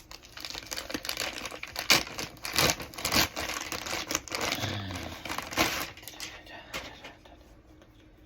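Mailing package being torn open, its wrapping crinkling and tearing in irregular bursts with a few sharp crackles; it dies away over the last second or two.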